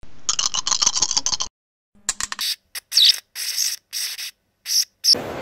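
Animated logo intro sound effects: a burst of rapid rattling clicks for about a second and a half, then, after a short silence, a string of brief high-pitched hissy bursts with silent gaps between them.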